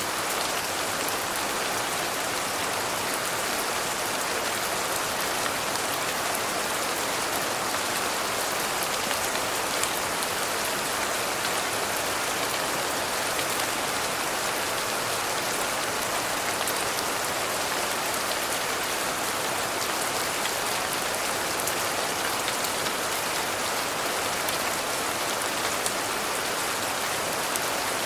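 Steady rain falling, an even hiss with a fine patter of drops that holds unchanged throughout.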